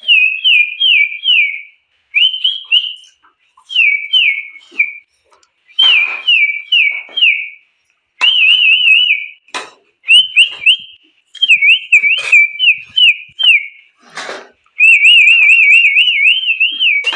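A person whistling over and over to call animals: short runs of three or four quick falling whistles, then a long warbling whistle near the end. A few sharp knocks sound in between.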